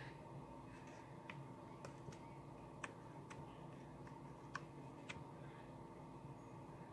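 A handful of faint, irregular clicks and taps from a paper piercer poking tiny leftover bits out of a die-cut cardstock piece.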